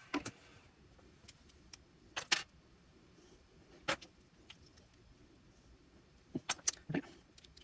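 Scattered sharp clicks and clacks of small hand tools and a small metal-and-plastic part handled and pried at on a workbench, a few single knocks and then a quick cluster of them near the end. A faint steady hiss stops within the first second.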